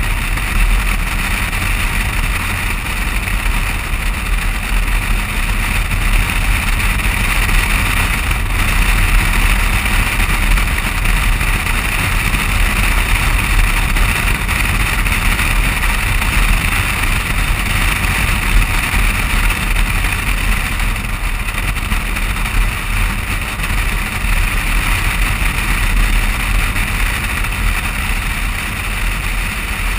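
Steady noise of a car driving along at speed, picked up by a camera mounted low on its side next to the front wheel: a deep rumble with a hiss over it and no clear engine note.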